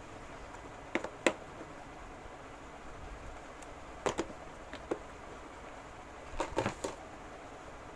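Scattered sharp clicks and light taps over a steady faint hiss: a pair about a second in, a few more around four to five seconds, and a quick cluster of three near the end.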